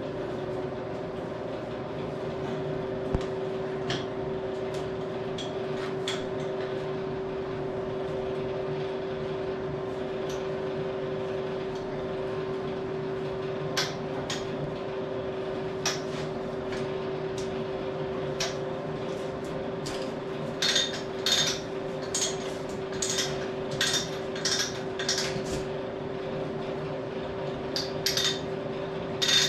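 Steel chain of a chain hoist clinking as it is worked, with the hoist run out of chain. There are scattered single clinks at first, then a run of about two clinks a second through the last third, over a steady hum.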